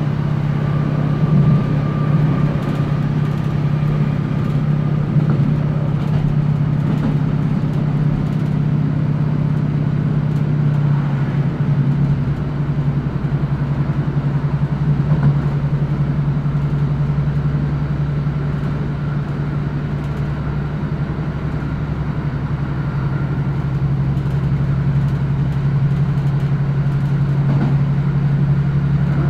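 Class 156 diesel multiple unit heard from inside the passenger saloon while under way: the steady drone of its underfloor Cummins diesel engine over the running noise of the train. A deeper rumble comes in about twelve seconds in and stays.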